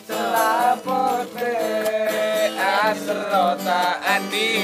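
Acoustic guitar strummed in steady chords while a singer holds long notes that bend and slide in pitch.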